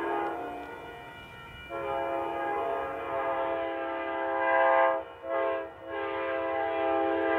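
Amtrak GE P42 locomotive's K5LA five-chime air horn sounding a chord. The end of one blast fades out, then comes a long blast, a short one and another long one: part of the long-long-short-long signal for a road grade crossing.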